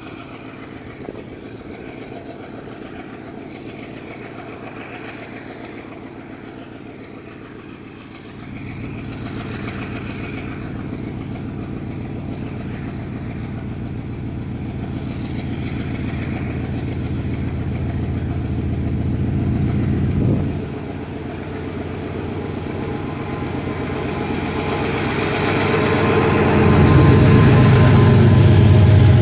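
GE C36-7i diesel-electric locomotive's 16-cylinder 7FDL engine running as it pulls a train of tank cars toward and past the listener. The low engine sound grows steadily louder, drops suddenly about twenty seconds in, then builds again and is loudest near the end as the locomotive goes by.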